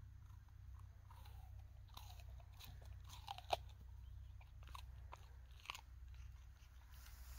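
Manchester Terrier biting into and chewing an apple: scattered crisp crunches, the loudest about three and a half seconds in and another near six seconds, over a low steady rumble.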